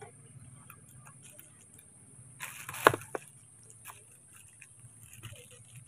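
A sharp crack inside a brief rustling clatter about three seconds in, amid light clicks and taps of small objects being handled. A steady low hum and a steady high-pitched hiss run underneath.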